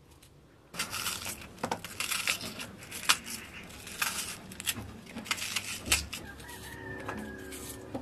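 A knife cutting through a raw onion held in the hand, crisp crunching and snapping strokes in quick, uneven succession, starting about a second in. A faint pitched sound comes near the end.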